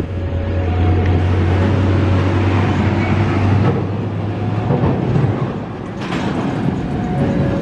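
Heavy diesel trucks and cars drive over a railway level crossing, with a deep engine hum that fades about five seconds in. Behind it the crossing's warning signal sounds faintly, a steady two-note tone switching slowly between notes.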